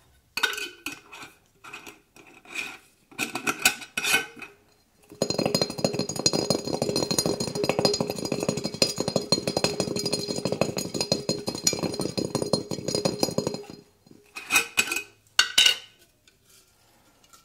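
Elephant garlic cloves knocking into a glass jar, then shaken hard in the covered jar for about eight seconds as a dense, even rattle that cracks the papery skins loose for peeling. A few clinks of the jar and cloves follow near the end.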